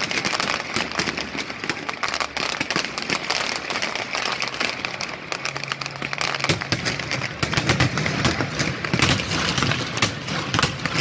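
Fireworks display: a dense, rapid crackle of many aerial shells bursting at once. Heavier low booms join in about six and a half seconds in.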